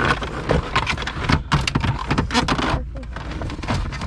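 Plastic centre-console trim being slid and worked loose by hand, giving an irregular run of clicks, knocks and rattles with short pauses.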